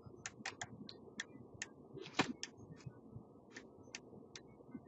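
Faint, irregular clicks and short scratches of a stylus tapping and writing on a tablet surface as words are handwritten, a dozen or so in all, with one louder tap a little past two seconds in.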